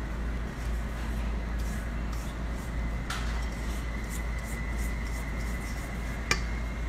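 Spatula scraping the sides of a stainless steel stand-mixer bowl of creamed butter and sugar, faint rubbing with two short clicks against the bowl, over a steady low hum.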